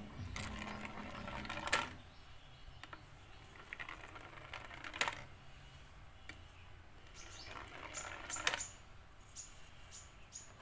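Small balls rolling down a plastic spiral ball-drop tower and knocking into one another as they queue at the top of a wooden slope. A few sharp clacks, the loudest about two, five and eight and a half seconds in, with softer rolling rattles leading into the first and last.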